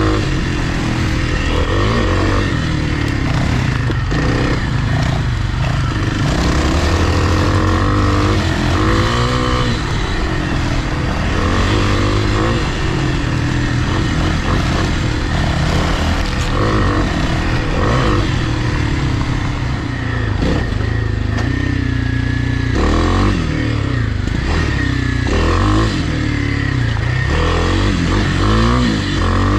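Four-stroke single-cylinder dirt bike engine under way on a trail, its pitch rising and falling again and again as the throttle is worked.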